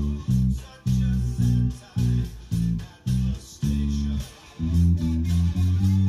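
Electric bass (Squier Jazz Bass) played fingerstyle through a small combo amp: a riff of plucked notes in short rhythmic phrases with brief gaps. About two-thirds of the way in it moves to longer, lower held notes.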